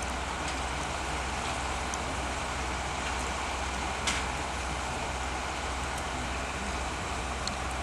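Steady running noise from a catenary-wiring works train's engine, with a few faint clicks and one sharper click about four seconds in.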